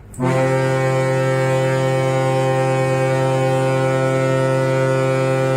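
Ship's horn sounding one long, loud, steady blast that starts abruptly and holds a single deep pitch for more than five seconds.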